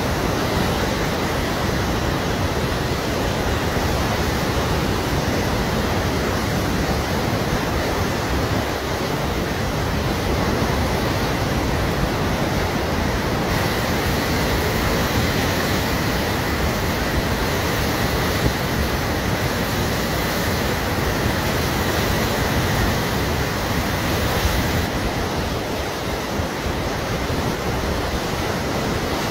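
Floodwater of the swollen Sutlej River rushing steadily without a break.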